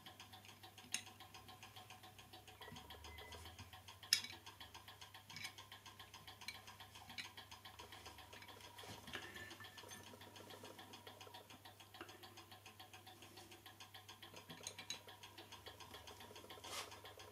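Small metallic clicks and taps as parts of a clock movement are handled and a bracket is fitted over its gearing, the loudest about four seconds in and another near the end. Underneath runs a faint, fast, even ticking.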